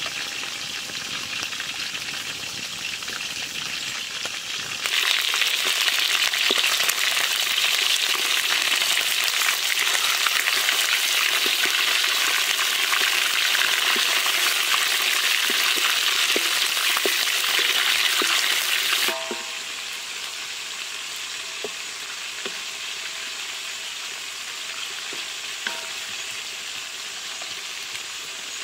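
Chicken pieces sizzling in hot oil in a wok as they are stirred with a spatula, with small scrapes and clicks among the hiss. The sizzle turns loud about five seconds in and falls back to a softer steady hiss about two-thirds of the way through.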